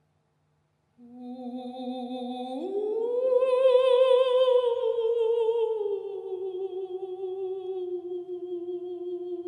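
A voice singing one long wordless note with a slow vibrato. It comes in about a second in, slides up about an octave and swells, then sinks slowly and holds.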